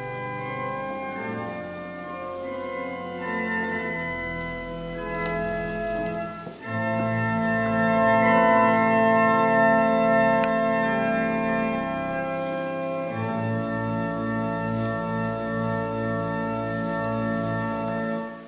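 Organ playing slow, held chords, with a brief drop about six and a half seconds in; the music fades out at the end.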